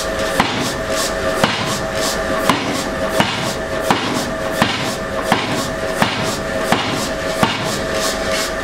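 Blacksmith's hammer striking hot steel on an anvil in an even rhythm, about three blows every two seconds, each followed by a short metallic ring from the anvil. A steady rushing noise runs underneath.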